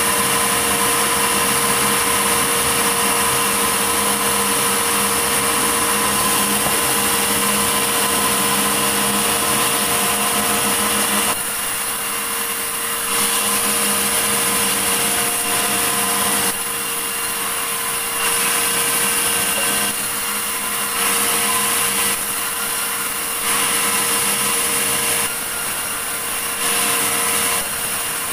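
Sawmill saw running steadily while cutting a large medang log, with a fixed whine over the noise of the cut. From about eleven seconds in, the level drops and comes back every second or two.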